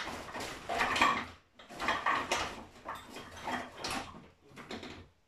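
Rummaging: a run of irregular clattering and rustling noises as objects are shifted about and searched through.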